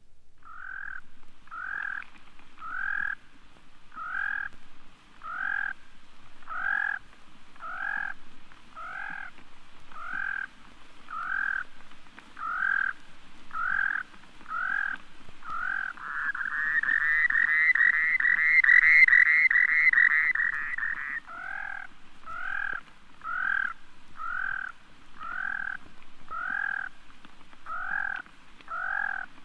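Rock sandpiper calling: a short, rough note repeated about once every 0.7 seconds. About halfway through it breaks into a faster, louder trill that lasts around five seconds, then the spaced notes resume.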